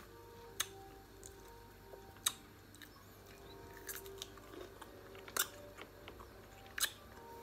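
A person chewing and biting tamarind, with a handful of sharp crunches at irregular intervals, about one every second or two.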